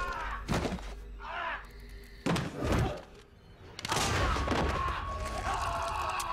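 TV drama soundtrack: a man's short pained cry and several heavy thuds and hits as he thrashes on the floor, under a tense score; a held high tone enters about four seconds in.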